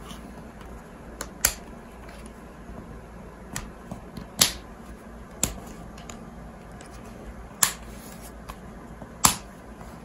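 Plastic snap-fit clips of an ASUS MB16AMT portable monitor's casing clicking into place as its edges are pressed down by hand: about half a dozen sharp clicks at uneven intervals.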